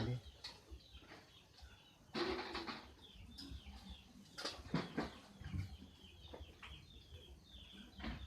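Bird chirping: many short, faint falling chirps repeated throughout, with a few louder brief rustles or knocks about two seconds in and again around the middle.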